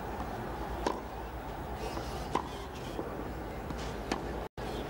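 Tennis ball struck back and forth in a baseline rally on clay: about four sharp pocks, one every second or so, over a steady hiss. The sound cuts out completely for a moment near the end.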